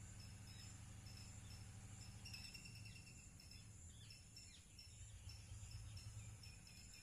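Faint outdoor nature ambience: insects trilling steadily with a run of short, regularly repeating high chirps, and a few brief bird calls from about two seconds in, over a low steady hum.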